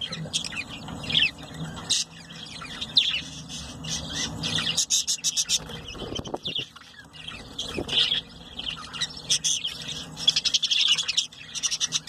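Budgerigars chirping and chattering: rapid short high chirps and clicks, thickest around five seconds and again ten to eleven seconds in.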